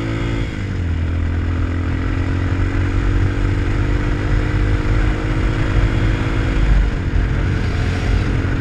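RPS Hawk 250 dual-sport motorcycle's single-cylinder engine running under way, heard over steady wind and road noise. Its pitch drops about half a second in, climbs slowly for several seconds, then drops again near the end as the rider shifts or eases off the throttle.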